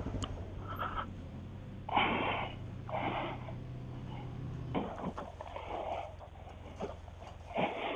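Honda CRF250L's single-cylinder engine idling low, then going quiet about five seconds in. A couple of loud, breathy huffs close to the helmet microphone come before it stops.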